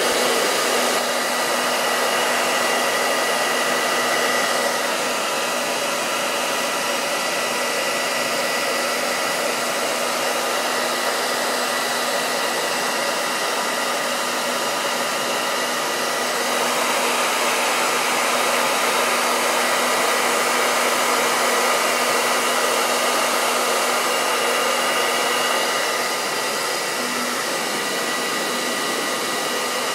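Hair dryer running steadily on one setting, blowing hot air to melt crayons glued to a canvas. It makes an even rush of air with a steady hum.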